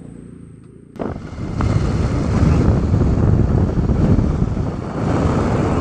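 A faint low hum, then about a second in an abrupt change to a scooter ride: the engine running under loud wind buffeting on the microphone.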